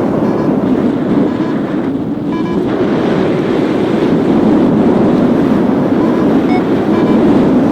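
Strong wind rushing over the microphone in paraglider flight, a loud steady rush. Short high beeps from a flight variometer come and go through it, signalling lift.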